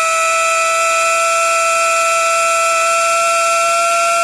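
Skoda 1.9 diesel engine held at about 2000 rpm while turbo cleaner is fed into its air intake. The main sound is a loud, steady whine over a hiss.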